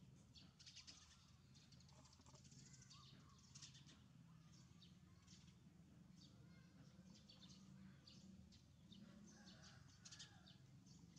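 Faint chirping of small birds, short scattered calls throughout, over a low steady hum.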